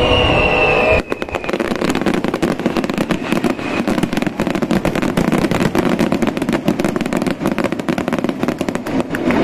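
Fireworks finale barrage: many crackle shells bursting together in a dense, rapid crackling and popping. It starts as the music cuts off about a second in.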